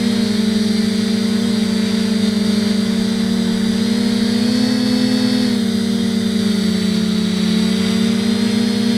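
FPV quadcopter's electric motors and propellers whining steadily, the pitch rising slightly about halfway through and then settling back.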